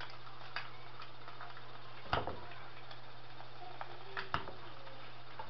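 Eggs frying in a pan: a soft sizzle with scattered small pops and crackles over a steady low hum, and two sharper knocks, about two seconds in and about four seconds in.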